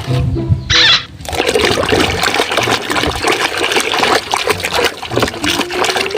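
Running water splashing and spattering as toys are washed, with a short burst of spray just before a second in, then continuous splashing to the end.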